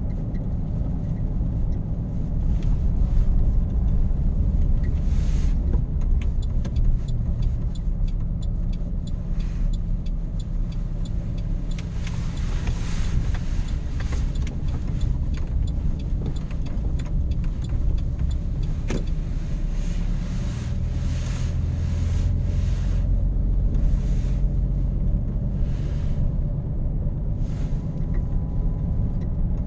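Truck driving on a snowy road: a steady low engine and road rumble, with scattered short crackling clicks.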